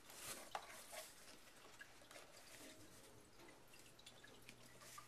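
Faint handling of cardboard packaging as a box is opened: a few short rustles in the first second, then scattered light ticks and taps.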